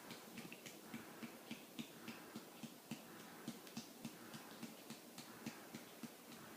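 Soft rhythmic pats on a back to bring up a burp, about three to four light taps a second.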